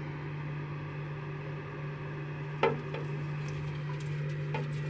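Mud turtle's claws and shell knocking against the wall of a plastic container as it scrabbles in shallow water: one sharp knock a little under three seconds in and a softer one near the end, over a steady low hum.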